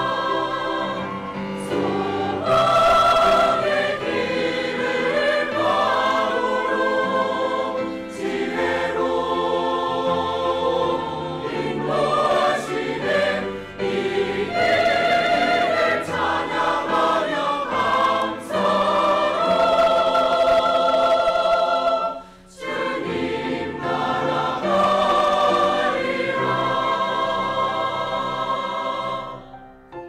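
Mixed-voice church choir of men and women singing a sacred anthem in parts. The singing breaks off briefly about two-thirds of the way through and ends just before the close.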